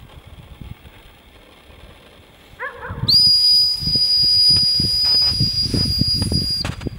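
A dog-training whistle blown in one long steady blast of about three and a half seconds, starting about three seconds in. This is the stop whistle used to halt a retriever out on a blind so it can be handled. Just before it, a dog barks briefly in the distance.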